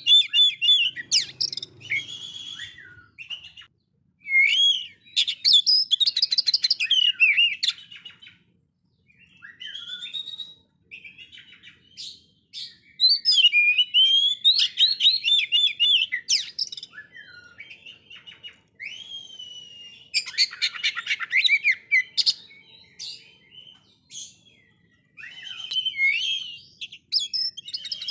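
Oriental magpie-robin (kacer) singing loud phrases of quick varied whistles, trills and fast rattling notes, with short pauses between the phrases.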